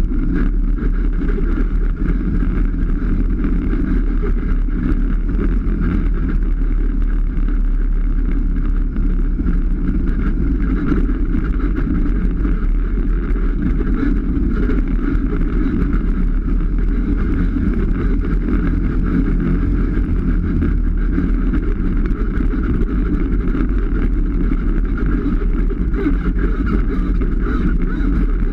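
Polaris RZR 570 side-by-side's single-cylinder engine running steadily while driving along a dirt trail.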